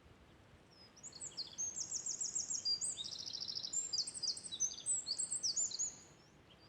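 A songbird sings a fast, high-pitched song of rapid trills and quickly repeated notes. It starts about a second in and stops about a second before the end.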